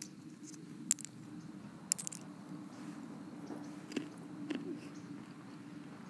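Pistachios being eaten: a few sharp, crunchy cracks and chewing sounds, with single crunches about one and two seconds in and two more around four seconds, over a faint steady hum.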